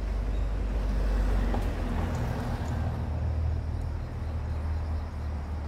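A steady, low vehicle-engine rumble, its pitch stepping up slightly about two seconds in.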